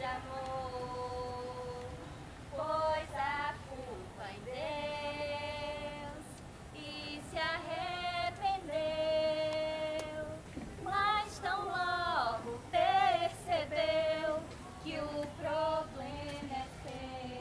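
A woman singing a slow melody unaccompanied, in long held notes with short gaps between phrases.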